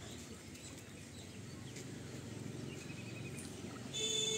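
Steady low outdoor background noise with a faint bird chirp, then about four seconds in a vehicle horn sounds once, a steady, loud toot of about half a second.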